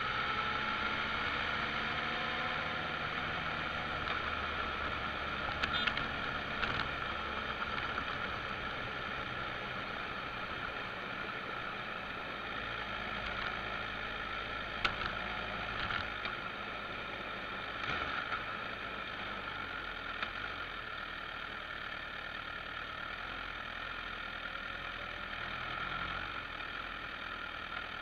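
Motorcycle engine running under way, with wind and road noise, heard from a camera mounted on the bike. The engine note rises in pitch over the first few seconds as it accelerates, and a few sharp clicks break in.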